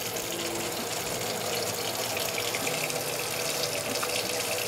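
Kitchen faucet running a steady stream into a stainless steel sink, the water splashing on the steel bottom around the open drain.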